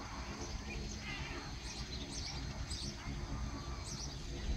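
Small birds chirping repeatedly in short high calls, over a steady low rumble.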